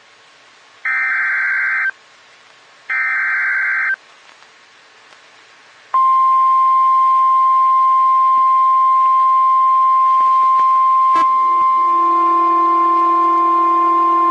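NOAA Weather Radio EAS alert, announcing a severe thunderstorm warning. It starts with two SAME header data bursts, harsh digital buzzes about a second long with a second of silence between them. About six seconds in comes the long, steady, single-pitch 1050 Hz Warning Alarm Tone. After a click near eleven seconds, a second, lower tone sounds beneath it.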